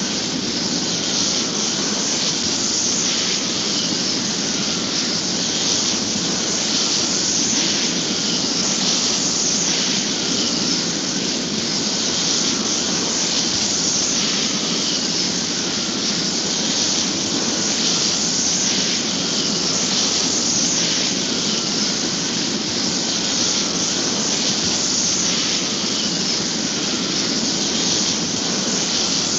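A steady, loud rushing hiss with a faint whistle that wavers up and down in pitch, then cuts off just after the end.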